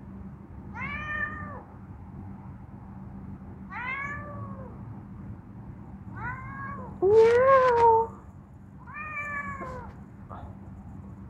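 Tabby-and-white cat meowing five times, a second or two apart. The fourth meow, about seven seconds in, is the loudest and longest, rising in pitch and then held.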